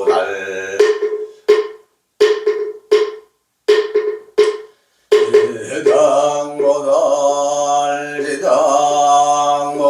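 Moktak (Korean Buddhist wooden fish) struck in a run of sharp knocks, each with a short ringing pitch, about two a second. Then a man's voice takes up the dharani chant again about five seconds in.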